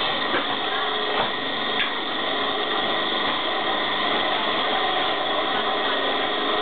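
Electric coconut grater running steadily as a coconut half is pressed against its spinning toothed head, shredding out the white meat. The whirring grind is constant, with a few light knocks in the first two seconds.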